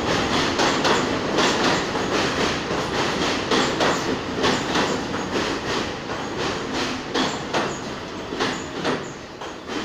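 New York City subway train running along a station platform, its wheels clicking rhythmically over the rail joints, about two to three clicks a second, over a steady rumble that grows quieter toward the end.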